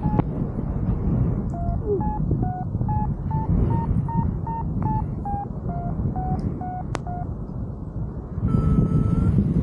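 Paragliding variometer beeping in short tones, about two to three a second, its pitch stepping up and down. The beeps signal that the glider is climbing in lift. Wind rushes steadily on the microphone underneath and grows louder near the end, where a longer steady tone sounds.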